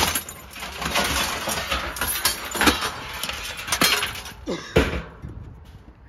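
Pieces of scrap metal clinking and clattering against each other in a plastic bucket as they are rummaged and pulled out, a quick run of sharp knocks that dies down about five seconds in.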